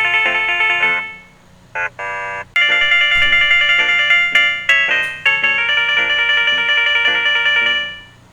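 Galaxy S9 default ringtones playing: one melodic ringtone fades out about a second in, a brief separate tone follows, then another ringtone of repeated bell-like keyboard notes starts and fades out near the end.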